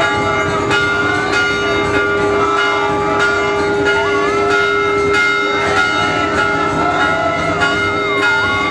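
Brass temple hand bells rung in repeated strokes, about two a second, over a held steady drone tone and a wavering melody line.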